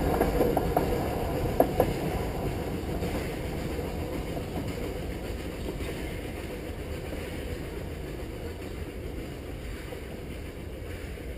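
Puffing Billy narrow-gauge steam train rumbling away along the rails, fading steadily as it moves off. There are a few sharp clicks from the track about a second and a half in.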